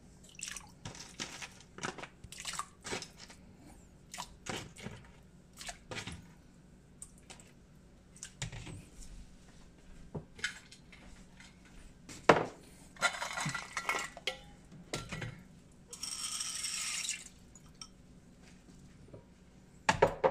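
Soup ingredients and bowls being handled at a ceramic slow-cooker pot: scattered clinks and knocks of crockery, small splashes of pork ribs and soybeans going into the water, a sharp knock about two-thirds of the way through, and a short hiss near the end.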